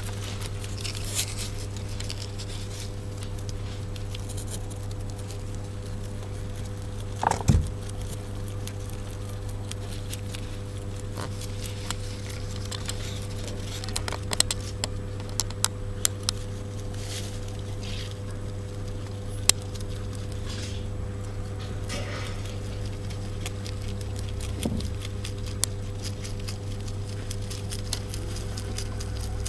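Rabbits munching fodder: irregular crisp crunching and rustling clicks from their chewing and from the feed being moved, over a steady low hum. A brief louder sliding sound about seven seconds in.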